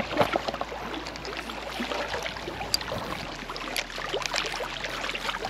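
Small lake waves lapping and splashing against shoreline rocks, a steady wash broken by many small splashes.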